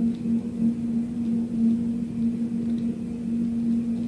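Steady low droning hum from the sky: one deep tone with a fainter higher tone above it, wavering slightly in loudness. It is the unexplained sky drone reported over Argentina in 2020, of unknown origin.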